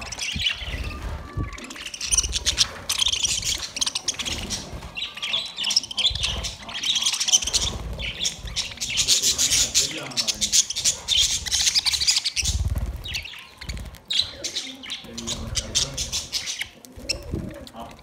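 A flock of budgerigars chattering and chirping almost nonstop as they feed. There are brief low rumbles now and then underneath.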